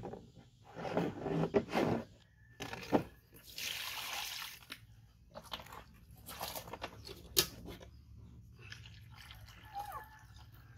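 Water being scooped with a plastic dipper, poured and splashed into a plastic basin, in irregular splashes with a longer pour a few seconds in. A few sharp knocks are heard, one near the start and one past the middle.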